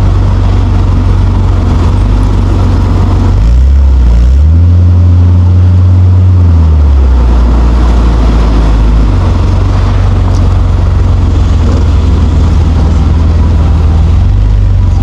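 Nissan Skyline R34 GT-T's turbocharged straight-six running at low revs, rising in pitch about four seconds in as the car accelerates, holding for a couple of seconds, then falling back to low revs.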